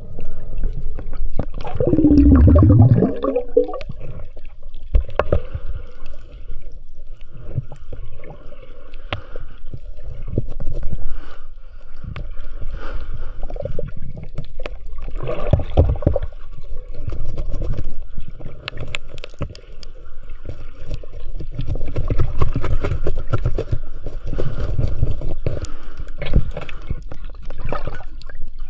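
Seawater gurgling and sloshing around the camera while diving, full of small clicks and knocks, with a louder surge about two seconds in.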